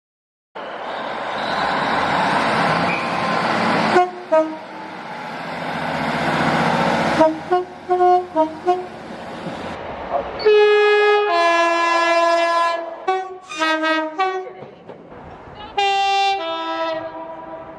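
British train horns: a train rushes past with a noisy rumble, then there are short toots and, about ten seconds in and again near the end, longer two-tone horn blasts sounding a high note followed by a lower one. The sound changes abruptly several times, as separate clips are spliced together.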